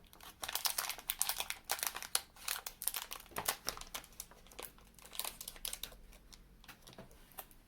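Candy packaging being handled and opened, crinkling and crackling in quick irregular bursts that thin out near the end.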